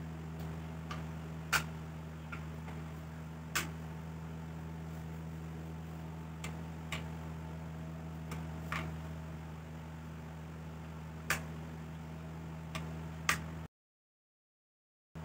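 Sharp, separate clicks and taps, about eight of them spread out, as an electric hand planer is handled and a steel ruler and combination square are set against its aluminium sole and blades, over a steady low hum. The sound cuts out to silence about a second and a half before the end.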